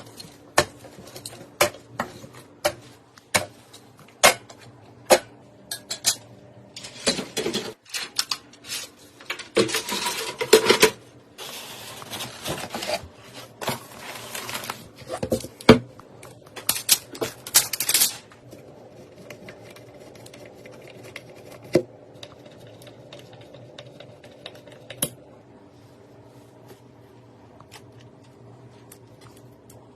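Clicks and metallic clinks of computer parts being handled and fitted together during a PC build, dense and irregular at first with a stretch of rustling handling noise, then thinning out to a few clicks over a steady low hum.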